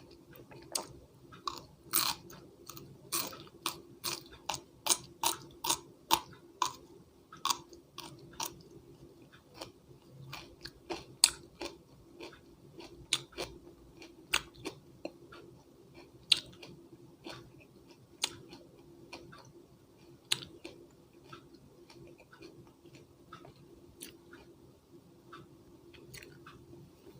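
Close-up chewing of crisp raw vegetables: a quick, regular run of sharp crunches about two a second, thinning later into sparser, softer crunches with a few loud bites.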